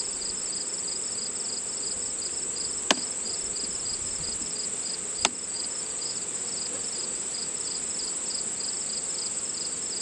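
Crickets chirping steadily in the surrounding grass: a high trill with a rhythmic chirp about three times a second. Two sharp clicks stand out, about three and five seconds in.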